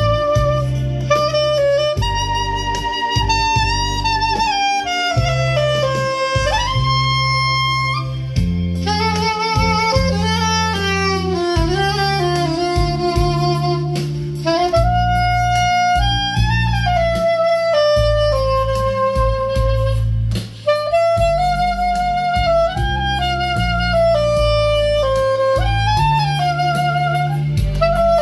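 Soprano saxophone playing a slow, lyrical melody with vibrato on the held notes, over a backing track with a low bass and chord accompaniment.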